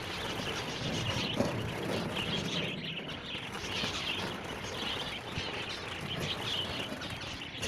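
A flock of zebra finches chattering and chirping continuously, many birds calling over one another.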